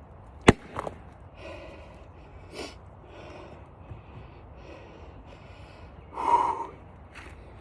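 One sharp crack of an 8-pound splitting axe striking an oak round about half a second in, with a smaller knock right after. Then a man's heavy breathing, a puff every second or so, with one loud exhale about six seconds in.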